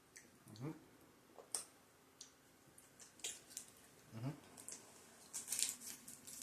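Faint chewing of a chewy candy, with mouth clicks and smacks scattered through, and two short rising 'mm'-like hums, about half a second in and again about four seconds in.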